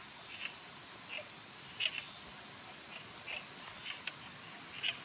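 Night chorus of insects making a steady high two-note buzz, with a frog giving a short call about every three-quarters of a second. A single sharp click about four seconds in.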